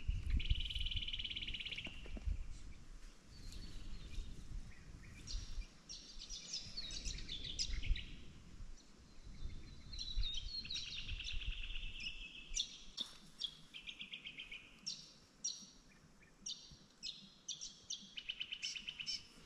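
Birds calling: several rapid, buzzy trills and many short, sharp high chirps repeating throughout, over a faint low rumble of outdoor background noise.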